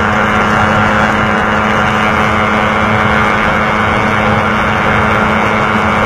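Onboard sound of a 150 cc single-cylinder underbone motorcycle running at steady high revs at speed, with wind rushing over the microphone. A second such bike is running close ahead. The engine note holds level, with no gear change or let-off.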